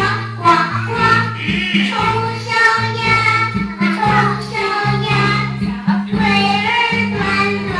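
Children singing a song together over an instrumental accompaniment with steady bass notes.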